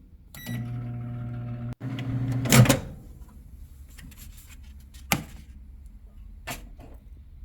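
Microwave oven running with a steady hum, with a few brief high tones near the start. The hum breaks off abruptly, returns, and ends with a loud clunk; a few scattered knocks follow.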